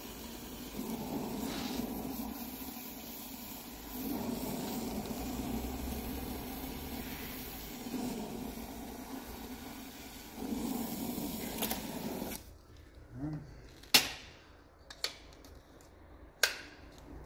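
Gas brazing torch flame burning steadily on a gas hose fitting held in a vise. The noise swells and eases a few times, then cuts off abruptly about twelve seconds in. A few sharp metal knocks follow.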